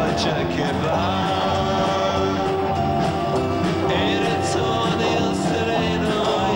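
1960s beat-pop song played by a rock band: electric guitars and drums with cymbal strokes, and voices singing together.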